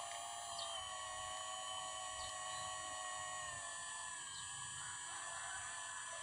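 Radio-controlled hydraulic model Kobelco SK200 excavator: a steady, high whine from its hydraulic pump, whose pitch shifts slightly about four seconds in as the arm and bucket work into the soil.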